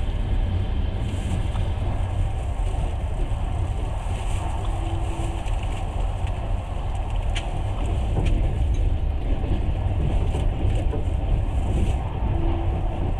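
Passenger train carriage running along the track, a steady low rumble of wheels and rails heard from inside the car.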